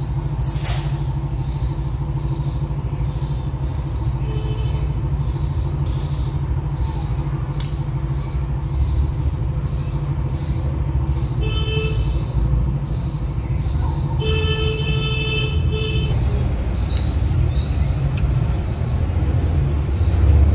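Steady low rumble of road traffic, with vehicle horns sounding three times: a short toot about four seconds in, another near the middle, and a longer honk a little later.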